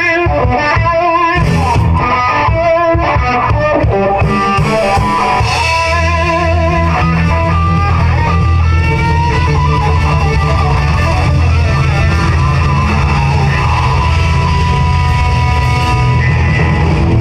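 Live band music led by a Stratocaster-style electric guitar playing held notes with vibrato and string bends. A heavier, steady low backing fills in about five seconds in.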